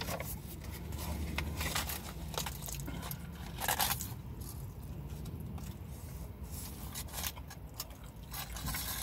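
Aluminium foil burger wrapper crinkling and rustling as it is handled, with chewing and biting between. The loudest crinkle comes a little under four seconds in.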